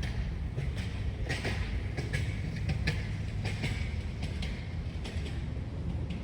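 Wind buffeting the microphone outdoors: a steady low rumble, with faint scattered clicks over it.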